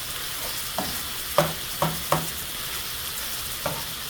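Italian sausage sizzling as it fries in a pan. A cooking utensil knocks and scrapes against the pan about five times as the meat is stirred.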